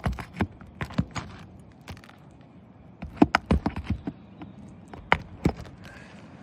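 Metal roofing tool clicking, knocking and scraping against asphalt shingles in irregular clusters as old staples are worked loose under a lifted shingle.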